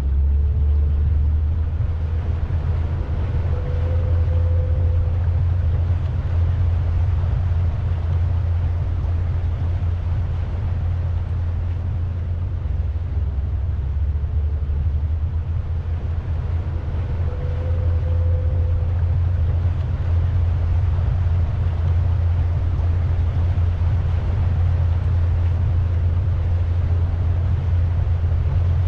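Pontoon boat under way: a steady low rumble from its motor and the wind, with a constant hiss of water and air over it.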